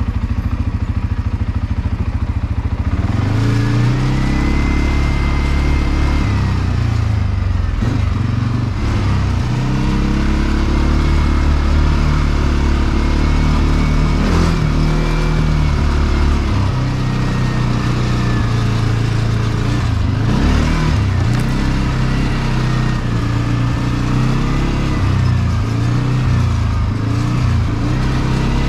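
CFMoto CForce 450L ATV's single-cylinder engine under way. It holds a low, steady note for the first three seconds or so, then revs up and down repeatedly as the throttle is worked, with a thin whine rising and falling along with the engine.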